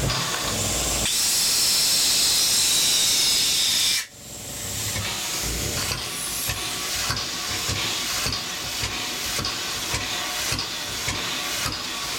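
Steam hissing loudly from a Stroudley Terrier 0-6-0 tank locomotive, cutting off suddenly about four seconds in. After that comes a quieter steady sound of the engine with regular soft beats about twice a second.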